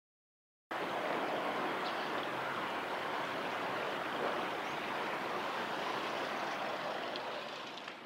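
Steady rush of a small river's running water, cutting in abruptly near the start and tailing off near the end.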